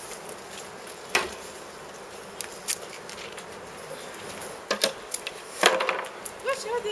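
Sharp knocks and clatter of objects being handled and unloaded at the back of a van: single knocks at first, then several bunched together about five to six seconds in, over a steady background hiss. A brief voice near the end.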